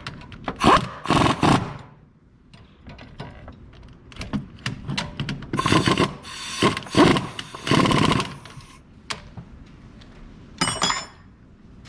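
Hand wrench work on a brake caliper's bolts: bursts of metallic clicking and scraping about a second long, with sharp clicks between them, as the bolts are run in and tightened.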